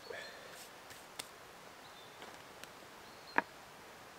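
Soft handling sounds from a thin groundsheet and kit being smoothed and shifted on grass: a few light rustles and small ticks, with one sharp click about three seconds in.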